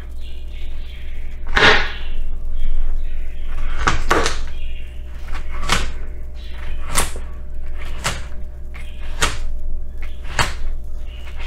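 Chef's knife chopping through carrot onto a plastic cutting board: a crisp chop about once a second, some eight cuts, over a steady low hum.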